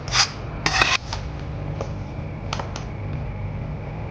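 A spoon scraping cooked mince curry out of a pan, two scrapes in the first second, followed by a few light clinks. A steady low hum runs underneath.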